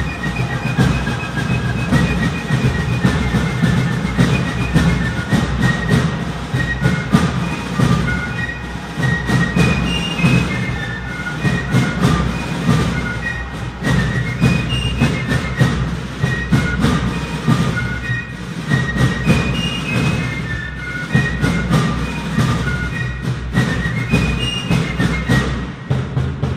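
Background music: a tune of short high melody notes over a steady, busy rhythmic accompaniment.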